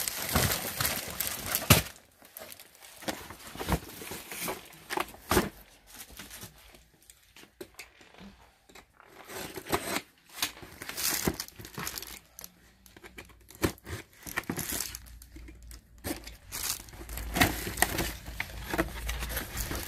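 A cardboard shipping box being pulled out, cut open and unpacked. Packing tape tears, the cardboard flaps scrape, and the plastic sleeves of paper cups crinkle in irregular bursts, with a sharp rustle just before two seconds in.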